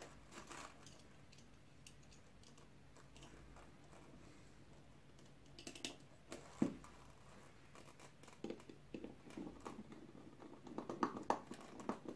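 Faint clicks, scrapes and light plastic taps of hands wiring a lamp socket, fitting the phase and neutral wires into its terminals. There is one sharper click about six and a half seconds in, and a quicker run of small clicks near the end.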